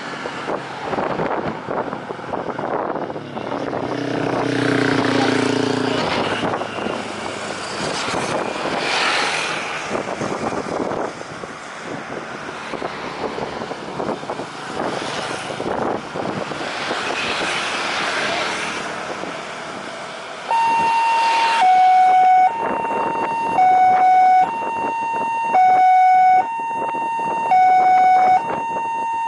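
Road traffic going by, with vehicles swelling past. About twenty seconds in, a two-tone emergency vehicle siren starts, switching between a high and a low note about once a second, and it is the loudest sound.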